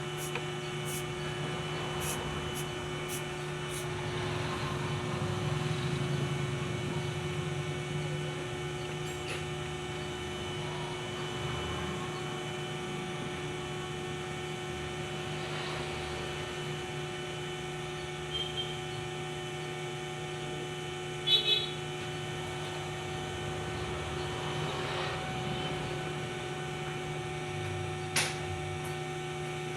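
Steady electrical hum with several fixed tones, broken by a few short clicks or taps, a pair about two-thirds of the way in and one near the end.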